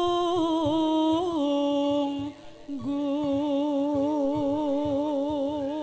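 A sinden, a female Javanese gamelan vocalist, singing solo through a microphone in long held notes with wide vibrato, breaking off a little after two seconds and then holding one long wavering note. Soft low beats sound regularly underneath.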